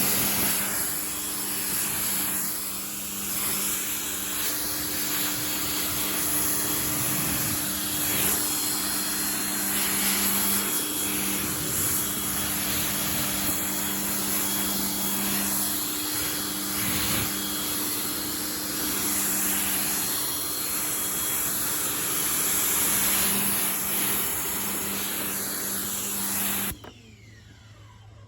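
Pressure washer running, its water jet spraying through the stock nozzle as a car is rinsed: a steady motor hum with a high whine under the hiss of the spray. It stops abruptly near the end.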